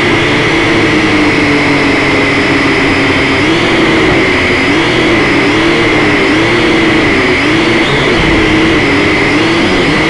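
Syma X5HC quadcopter's small brushed motors and propellers whining loudly as it flies, heard through its own onboard camera. There is a steady high tone, and under it a lower whine that keeps wavering up and down in pitch as the motors speed up and slow down.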